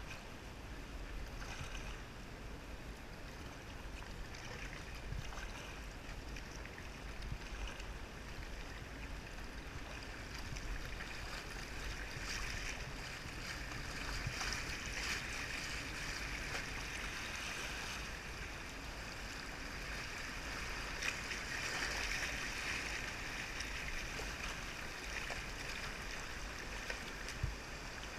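Shallow river water rushing and splashing over a gravel riffle around a kayak, swelling a little in the middle, with occasional light paddle splashes.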